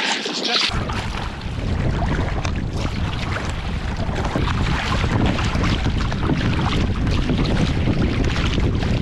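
Wind buffeting the camera microphone, a heavy low rumble that sets in suddenly about a second in, over the wash and splash of a kayak being paddled through choppy sea.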